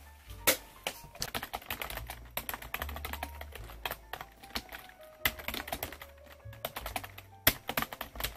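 Fast, irregular key clicks of typing on a computer keyboard, with background music underneath.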